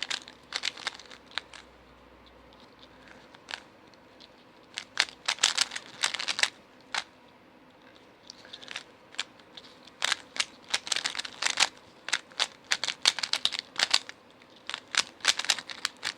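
Rubik's 3x3 cube being turned by hand: quick runs of plastic clicks as the layers snap round, with short pauses between runs while the solver looks for the next move. This is the last-layer stage of the solve.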